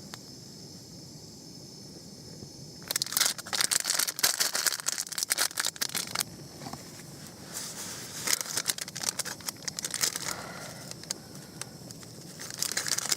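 Nylon tent fabric and gear rustling and crinkling as they are handled, in irregular bursts that begin about three seconds in, with quieter gaps between.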